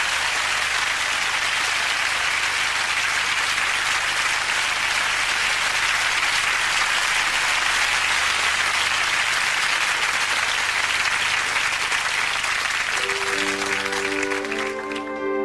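Studio audience applauding steadily. About thirteen seconds in, a brass band enters with slow, held chords as the applause fades.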